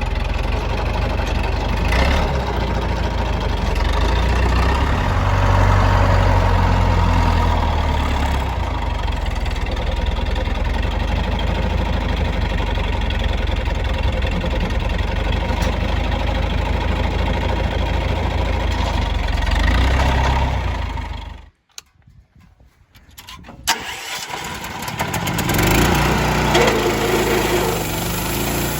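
Engine of a homemade sawmill running steadily. It cuts out abruptly about three-quarters of the way through; a couple of seconds later, after a sharp click, it comes back and rises again.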